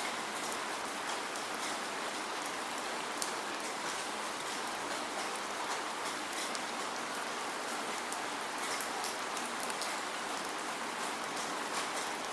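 Steady rain without thunder: an even hiss with many separate drops ticking sharply on a surface.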